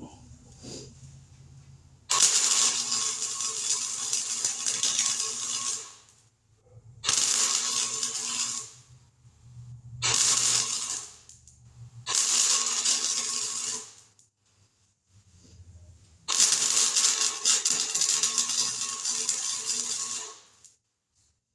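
Welder laying weld beads on the truck bed's sheet-metal patch panels in five separate runs of one to four seconds, each a steady crackling sizzle, with short pauses between runs.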